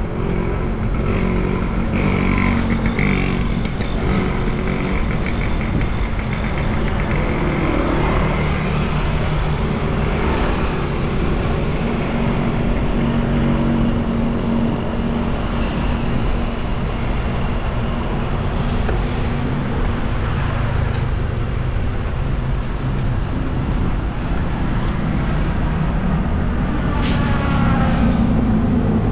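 Street traffic: car and motorcycle engines running and passing in a steady mix, with a sharp click near the end.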